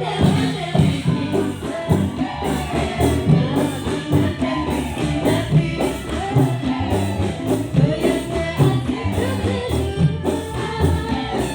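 A band playing through a PA sound system during a rehearsal: a melody line over a steady bass with regular drum and percussion hits.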